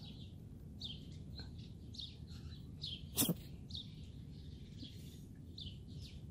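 Small birds chirping over and over in short, high calls, with one sharp click or thump about three seconds in.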